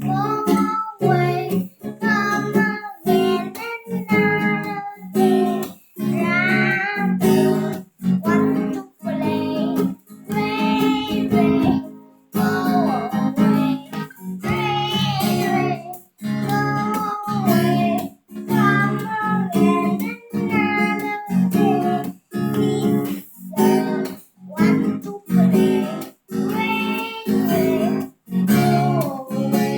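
A child singing a song to strummed acoustic guitar, phrase by phrase with short breaks between the lines.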